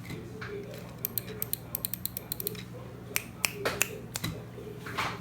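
Typing on an EverGlide SK68 custom mechanical keyboard with lubed Gateron Yellow linear switches, a polycarbonate plate and PBT keycaps. A quick run of keystrokes is followed by a few louder strokes, and a longer stroke comes near the end.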